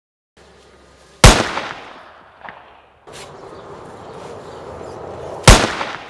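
Two loud revolver gunshots about four seconds apart, each with a long fading tail and a fainter echo about a second after it.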